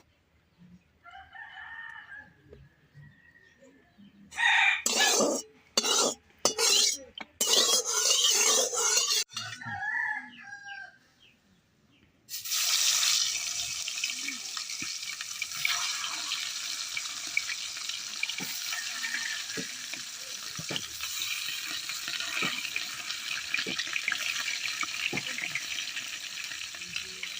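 A rooster crows in the first few seconds, followed by several loud harsh bursts. About twelve seconds in, a steady sizzle starts and holds: fish frying in hot oil in a pan.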